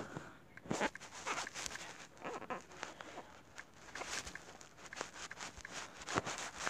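Irregular soft taps and clicks of fingers typing a message on a smartphone's touchscreen keyboard.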